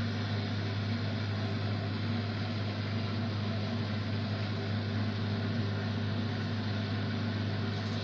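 Beko 6 kg front-loading washing machine running with a steady hum as its drum turns at the start of the spin cycle.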